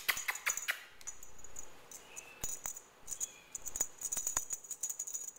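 Small bell on a feather teaser wand jingling in quick, irregular shakes as kittens bat at it.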